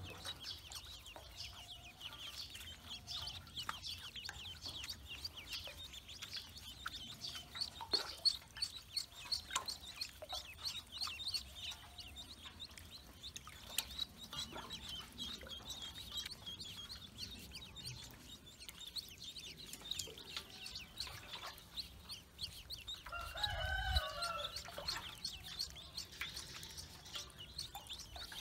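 A group of ducklings peeping constantly in quick, high chirps. About 23 seconds in, a louder, lower drawn-out bird call rises over them for about two seconds.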